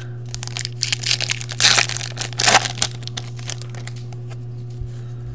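Foil wrapper of a Topps Valor football card pack being torn open and crinkled by hand, in a run of crackling rips lasting about three seconds, loudest around two seconds in.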